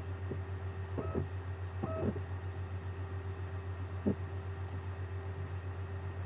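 Steady low background hum with a faint pulsing, with a few brief soft sounds about one and two seconds in and once more near four seconds.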